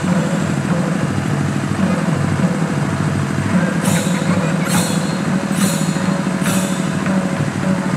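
Dense, rapid drumming accompanying a Tharu Sakhiya stage dance, with sharp bright strikes about once a second in the second half.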